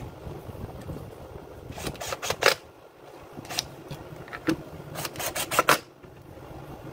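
Makita UC4551A electric chainsaw parts being handled on a bench: quick clicks and scrapes, bunched in two short flurries about two and five seconds in, with a couple of single clicks between them.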